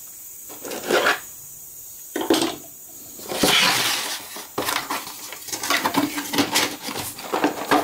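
Handling noise on a wooden workbench: a cardboard box is picked up and slid across the bench, a scraping rustle about three and a half seconds in, then a run of knocks and clinks as it is pushed against the transformer's steel frame.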